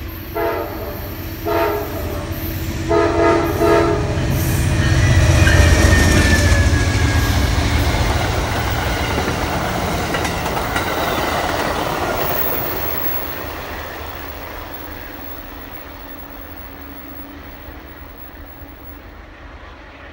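Amtrak passenger train headed by three GE P42DC diesel locomotives passing close by: three horn blasts in the first four seconds, then the locomotives' diesel engines pass, loudest about six seconds in. The passenger cars follow with a clickety-clack of wheels on the rails, fading away as the train recedes.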